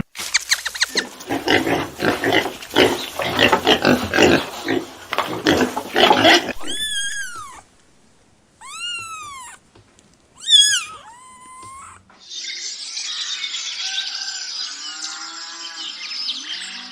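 Animal calls in three parts: a run of rapid, harsh calls for the first six seconds or so, then three or four separate high calls that each rise and fall in pitch, then a noisy chorus with wavering tones from about twelve seconds in.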